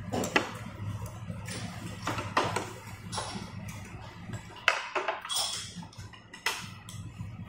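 Chopsticks tapping and clinking on porcelain bowls and plates during a meal, a handful of separate sharp clicks spread out over a low steady hum.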